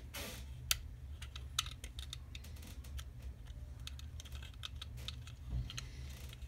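Small, irregular clicks and taps of plastic and metal parts being handled and fitted into a polymer Glock-pattern pistol frame, with two sharper clicks in the first couple of seconds.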